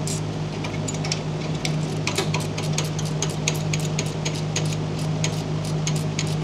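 A ratcheting wrench clicking in quick runs, several clicks a second, as it turns a nut on the lever's pivot bracket, over a steady low hum.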